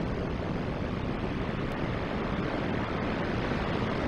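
Ocean surf breaking on the shore, mixed with wind, as a steady even noise.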